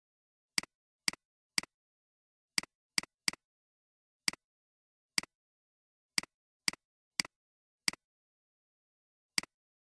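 Computer mouse button clicking, thirteen sharp clicks at irregular intervals, each a quick double snap of press and release.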